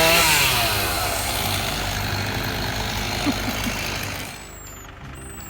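An engine drops in pitch over the first second, as if coming off the throttle, then idles steadily. A hissing noise over it fades out about four seconds in.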